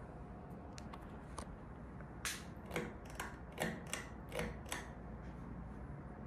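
1995 Emerson Northwind 52-inch ceiling fan running with a steady low hum. About two seconds in comes a quick run of roughly seven sharp clicks and knocks, lasting about two and a half seconds.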